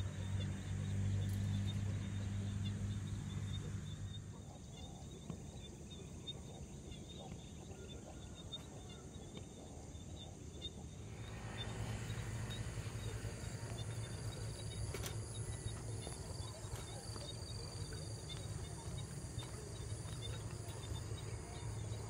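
Insects chirping steadily. From about halfway there is a low rumble from the bicycle rolling over a dirt track.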